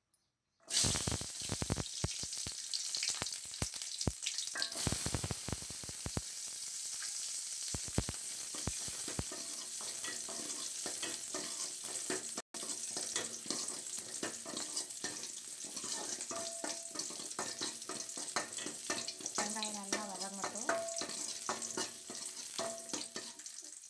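Small onions (shallots) frying in hot oil in an aluminium kadai. The sizzle starts suddenly about a second in, crackles heavily for the first several seconds, then settles into a steadier sizzle.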